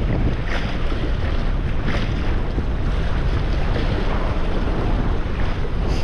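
Strong wind buffeting the microphone in a steady low rumble, with the wash of waves behind it.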